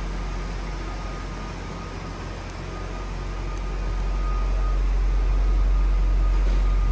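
Jaguar XJ Sport's V8 engine idling with a steady low rumble, growing louder about halfway through.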